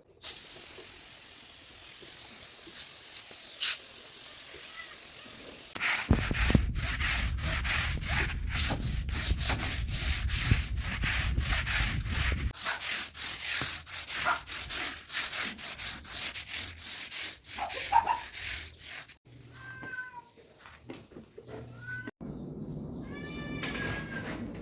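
Cleaning sounds: a steady hiss for the first few seconds, then rapid, irregular rubbing and scraping strokes of scrubbing or sweeping. Near the end a cat meows a few times in short, falling calls.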